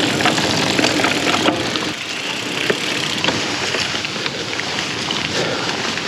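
Mountain bike rolling along a dirt singletrack: steady tyre noise with frequent small clicks and rattles from the bike.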